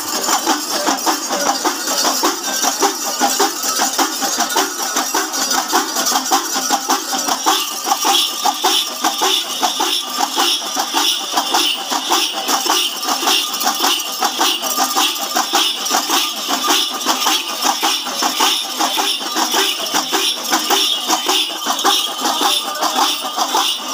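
Udukku hourglass drums played in a fast, unbroken rhythm for a ritual dance, with steady metallic jingling and clashing over the drumming.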